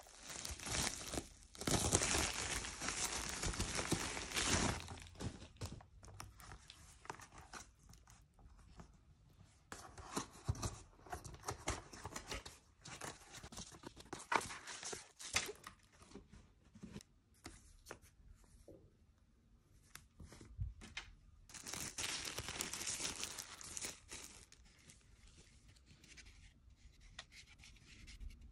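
Packaging being torn open and handled: a bubble-lined plastic mailer and a cardboard box, with plastic crinkling and rustling. The rustling is loudest for a few seconds about a second in and again for a few seconds near the end, with lighter, scattered rustles in between.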